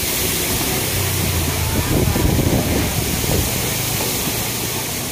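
Steady rain falling, a continuous hiss of drops on ground and awnings, with a low rumble a second or two in.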